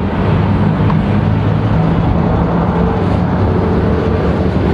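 A steady low drone of an engine running.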